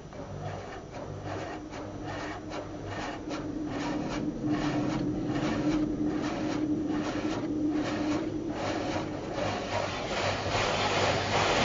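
Rotating car-wash brushes scrubbing over the windshield, heard from inside the car: the brush strips slap and rub across the glass about three times a second over a steady machine hum. Near the end a denser, steadier rushing noise takes over.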